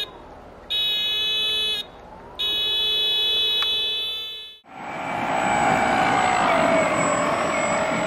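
A toy ride-on's electronic horn sounding in two buzzy held toots, about a second and then two seconds long. After a cut, a loud steady engine drone takes over, its pitch sliding down a little, from the plane being chased.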